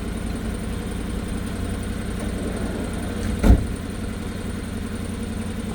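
Engine of a drain jetter running steadily, with one sharp thump about three and a half seconds in.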